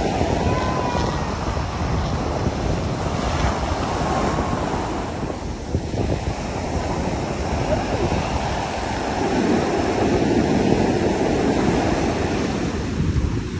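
Ocean surf breaking and washing up the sand, with wind buffeting the microphone. The wash swells louder about two-thirds of the way through.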